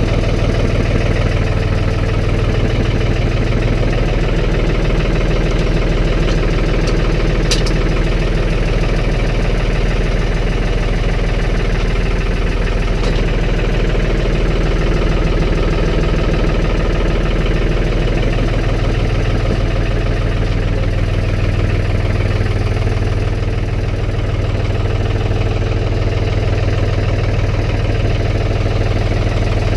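Engine of a snow-plowing vehicle running steadily at a low, even pitch, with one brief sharp click about seven and a half seconds in.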